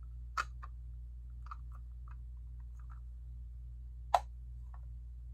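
Lego plastic pieces being handled and pressed together: a few light plastic clicks and one sharp snap about four seconds in, over a steady low hum.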